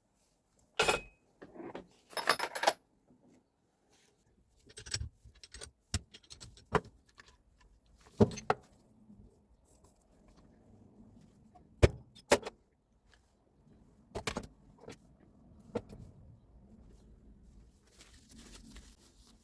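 Metal parts and hand tools clinking and knocking as they are handled during a repair. The strikes come one by one at irregular intervals, with a short rattle about two seconds in.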